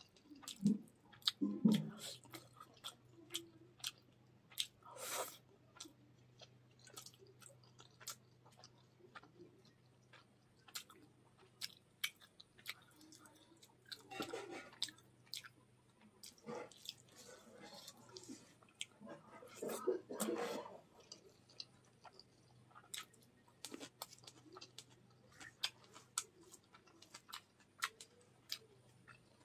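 Close-miked chewing of fish and rice: a string of small wet clicks and smacks, with a few louder bursts of chewing spread through.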